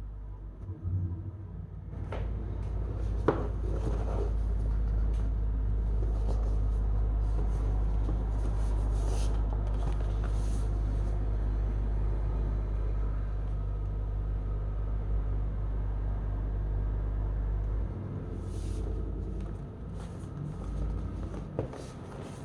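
Packaging being handled: scattered clicks and short rustles over a steady low rumble, which stops about 18 seconds in.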